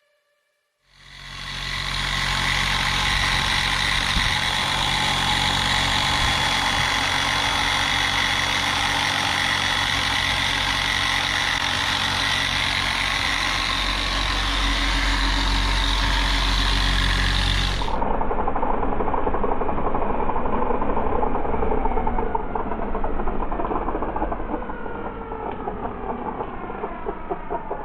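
Dual action polisher running steadily on car paint, fading in about a second in. Near the two-thirds mark an edit gives way to a duller-sounding stretch where the machine's pitch slides as it is worked.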